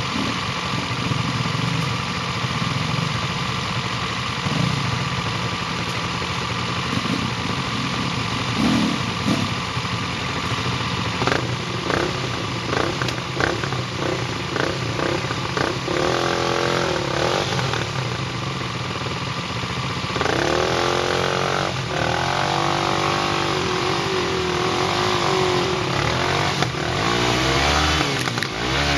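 Vehicle engine running under way, its pitch rising and falling with the throttle. A run of clattering knocks comes about 11 to 15 seconds in.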